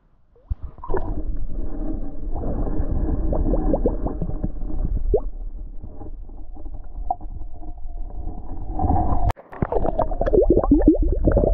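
Air bubbling and glugging out of a round glass flask as it is held under water and fills, heard through a submerged camera. Quick rising bubble plops come thick and fast, loudest near the end after a brief drop-out about 9 seconds in.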